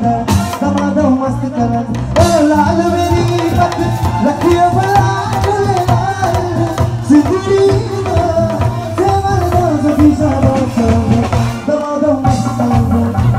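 Live band music played loudly through a concert PA: a male singer's voice over drums, bass and electric guitar.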